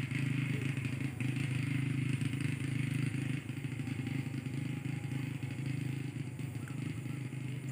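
Steady drone of an engine running at a constant speed, a low even hum that neither rises nor falls.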